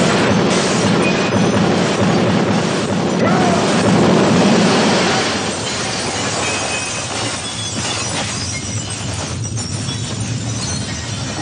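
Film sound effects: a dense, continuous crashing and rumbling with shattering, easing slightly after about six seconds.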